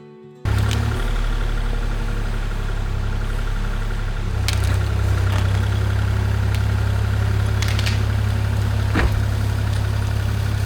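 Kubota KX040-4 compact excavator's diesel engine running steadily, with a strong low hum, cutting in abruptly about half a second in and getting louder about four seconds in. A few sharp knocks are heard over it.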